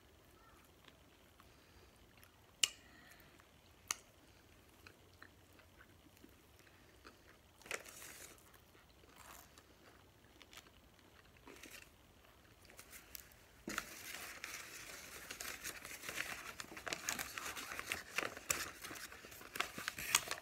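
Paper sandwich wrapper crinkling and rustling as it is handled, steady from about two-thirds of the way in. Before that it is mostly quiet, with a couple of sharp clicks and brief soft rustles.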